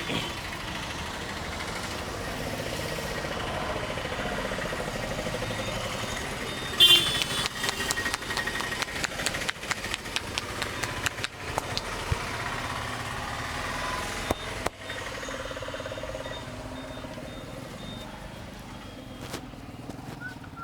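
Steady street traffic with motorcycle engines running. About a third of the way in, a loud sharp slap is followed by several seconds of rapid, irregular sharp taps and slaps.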